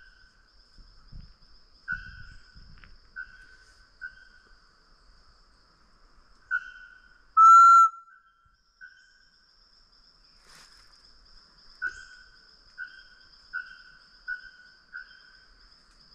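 Hand-blown macuco (solitary tinamou) call whistle of the 'pé de cabra' type, played with its hole covered: a series of short whistled notes about a second apart, with one longer, much louder note about halfway through.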